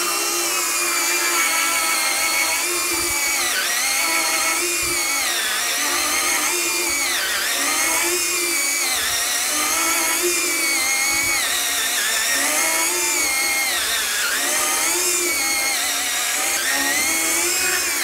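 Bosch EasyCut 12 Nanoblade saw, a small 12 V cordless mini chainsaw, cutting into a 65 mm oak block. Its motor whine sags in pitch and recovers every second or two as it bogs under load, working at the limit of its cutting depth in hardwood.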